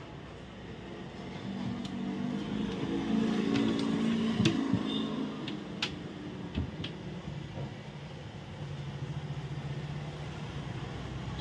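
Low engine hum of passing motor traffic that swells and fades, with a few sharp clicks in the middle.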